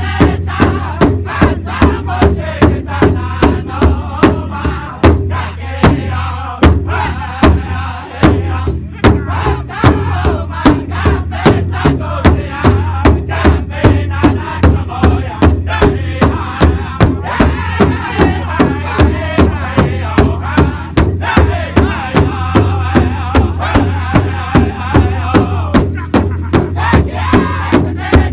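Powwow drum group singing an intertribal song: several men singing loudly together over a large shared drum struck in unison with drumsticks, a steady beat of about two and a half strokes a second.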